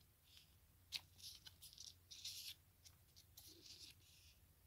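Faint rustling and flicking of paper pages as a miniature paperback book is leafed through by hand, with a small sharp click about a second in.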